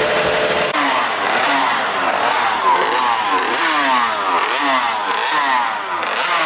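Racing motorcycle engine being blipped: the revs rise and fall over and over in quick bursts after a steadier note in the first moment.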